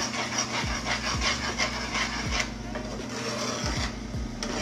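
A utensil stirring a thickening cornstarch glaze in a frying pan, scraping across the pan in quick, rhythmic strokes that stop a little over two seconds in.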